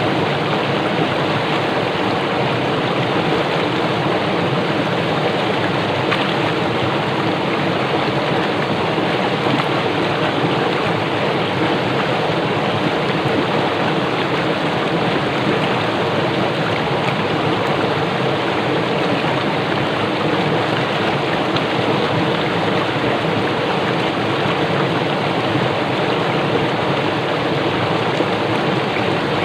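Fast-flowing stream rushing and splashing over rocks, a steady, unbroken rush of water.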